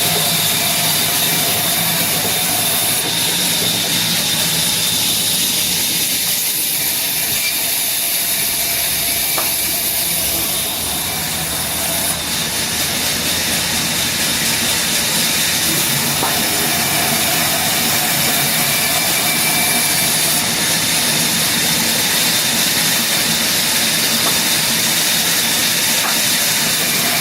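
Power saw running steadily while cutting through heavy hardwood: a continuous hiss with a steady high whine. The level dips briefly about ten seconds in.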